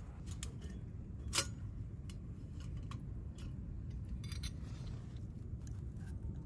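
Light clinks and taps of cups and utensils being handled, the loudest about a second and a half in, over a low steady rumble.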